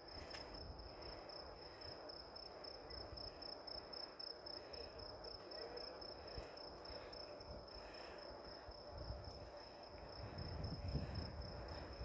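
Crickets trilling steadily: one high, finely pulsing tone that never stops, over a faint low rumble.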